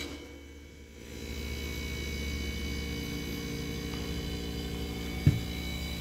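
Compressor of a Zeks industrial air dryer starting about a second in on its replacement start capacitor, then running with a steady hum: a normal start. A single sharp click about five seconds in.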